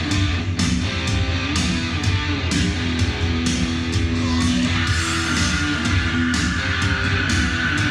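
Rock music playing from a vinyl record: electric guitar, bass and drums with a steady beat, and a long held note coming in about five seconds in.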